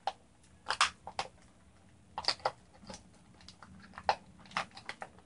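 Clear plastic blister packaging crinkling and clicking in irregular sharp crackles as a toy is worked out of its tray by hand.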